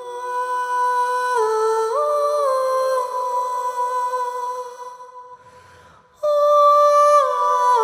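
Background music: a slow, wordless hummed melody of long held notes that step up and down in pitch. The phrase fades out about five seconds in, and a new phrase begins about a second later.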